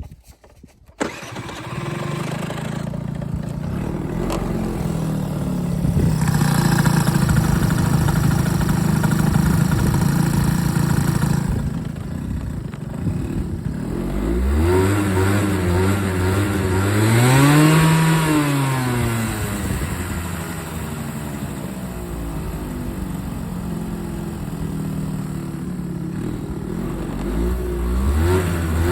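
Small vehicle engine starting about a second in and running at idle, then revved up and back down once, with a second rev beginning near the end. The seller lists the engine as running with an abnormal noise.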